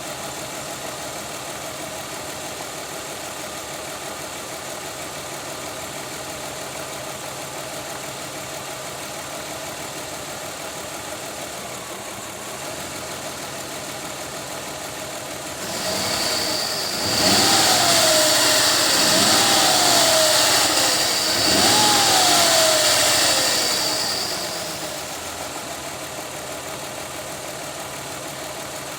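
2003 Mazda Tribute's V6 engine idling, then revved up and let fall back three times about two-thirds of the way through, with a high steady whine over the revs, before settling back to idle.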